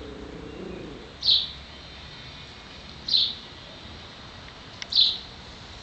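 A small bird repeating a short, high call note three times, about every two seconds.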